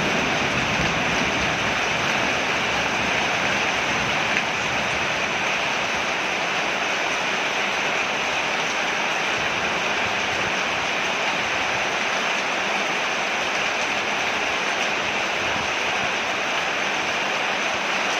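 Steady rain falling on a porch, an even hiss with no let-up. A low rumble of thunder dies away in the first couple of seconds.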